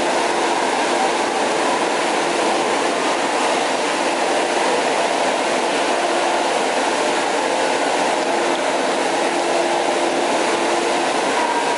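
Water pouring from artificial rock waterfalls into an indoor lazy river, a loud, steady rushing that fills the echoing hall.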